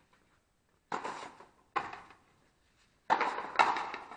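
Frontenis rally: the small rubber ball cracked by stringed rackets and slapping off the fronton's wall. Sharp hits ring off the walls, about four in all, the last ones loudest and closer together.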